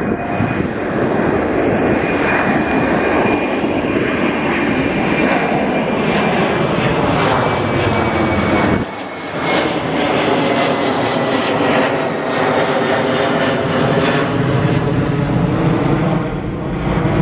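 Airbus A330-200's twin General Electric CF6 turbofans at takeoff climb power as the airliner passes overhead: a loud, steady jet roar with a high whine that slowly falls in pitch as it goes by and away.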